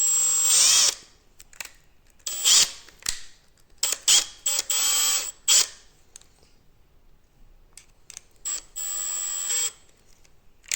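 Electric drill running in about six short bursts, its motor whine rising and falling, as it drives a screw into a 3D-printed PETG part.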